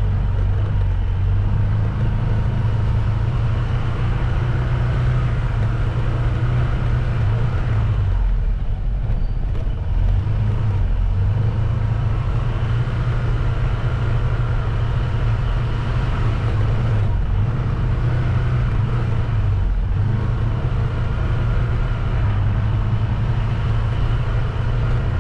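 A vehicle engine running steadily on the move, a continuous low drone with road and wind noise above it, easing off briefly a few times.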